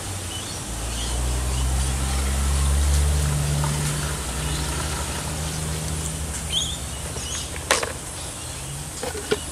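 A bucket of cloudy fish-tank water is poured down the corrugated fill tube of a wicking barrel: a low rumbling gurgle that swells and then fades out after about six seconds as the bucket empties. A bird chirps briefly near the end, followed by a short click.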